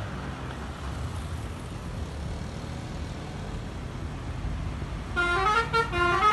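Low, steady vehicle and engine rumble, then about five seconds in a bus's Basuri 'telolet' multi-tone air horn starts playing its tune: short notes stepping up and down between a few pitches in quick alternation.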